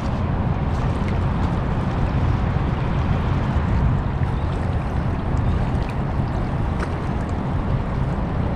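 Wind blowing across the microphone: a steady, deep rush with no breaks. Small waves lap at the rocky shoreline underneath.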